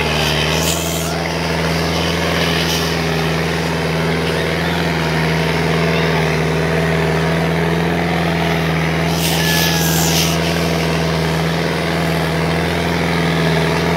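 Sonalika 750 tractor's diesel engine running steadily at a hard, even pitch under heavy load while hauling two harrows in tandem. Twice a short hiss rises over it, about a second in and again around nine seconds in.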